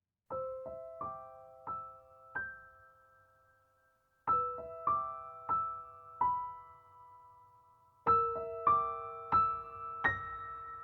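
Background piano music: gentle phrases of single struck notes, each ringing and fading, coming in three groups about four seconds apart.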